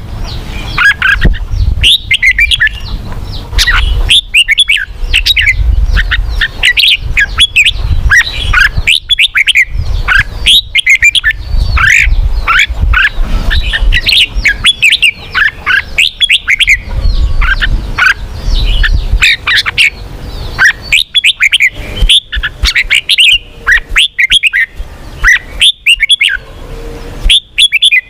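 Red-whiskered bulbul singing: rapid runs of loud, gliding chirps and whistled notes, broken by short pauses. A low rumble lies under the song for roughly the first two-thirds.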